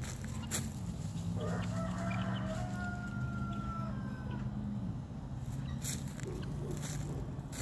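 A rooster crowing once, starting about a second and a half in: one long drawn-out call lasting a couple of seconds. It sits over a steady low hum that shifts pitch slightly about five seconds in.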